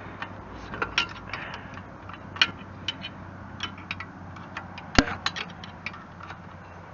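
Wrench and metal parts clicking and tapping irregularly as nuts on a Kubota BH77 backhoe's joystick control linkage are checked for looseness, with one sharper knock about five seconds in.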